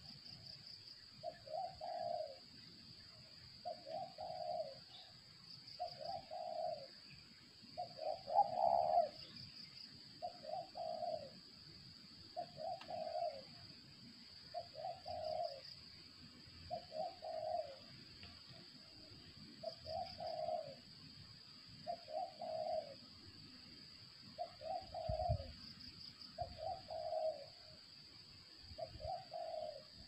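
Spotted dove (tekukur) cooing over and over, one short phrase about every two seconds, over a steady high insect buzz.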